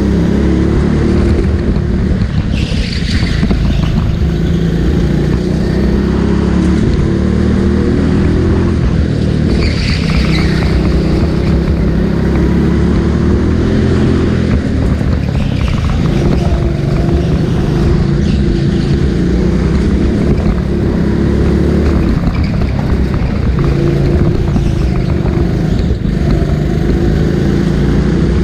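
Go-kart engine running hard, its pitch rising and falling as the throttle opens and closes.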